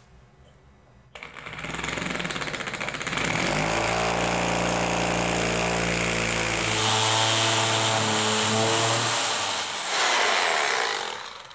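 Hammer drill with a masonry bit boring through ceramic wall tile. The drill starts about a second in, builds up over a couple of seconds, runs steadily as the bit cuts in, and stops shortly before the end.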